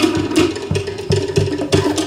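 Cook Islands drumming: wooden slit log drums (pate) beating a fast, rattling rhythm over a low bass drum thumping about four times a second.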